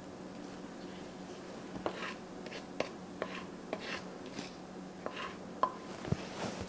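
Serving spoon scooping fried rice onto a plate: light, irregular scrapes and clicks that start about two seconds in.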